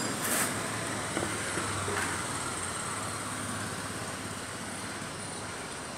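Steady background street traffic noise, with a faint low hum in the first half and a few light clicks, easing off slightly.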